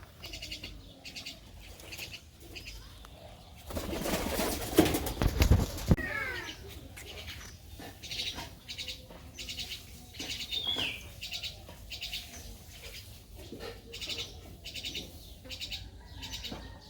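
Birds flapping their wings, with a loud flurry of flapping lasting about two seconds starting about four seconds in, and a few short bird calls.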